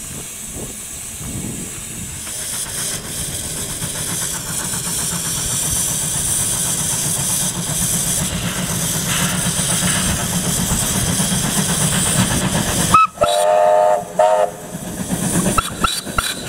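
Steam locomotive hiss with the rumble of a moving train, growing steadily louder; then, about 13 seconds in, a steam whistle blows a long blast and a short one.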